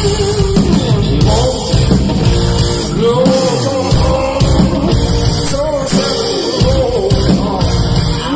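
Live blues-rock band performing: electric guitar, drum kit and keyboard, with a male singer coming in about a second in and singing.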